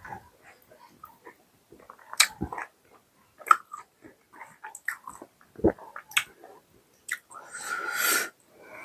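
Close-up eating sounds: a person chewing mutton curry and roti, with irregular wet mouth clicks and smacks. A longer rushing breath-like sound comes near the end.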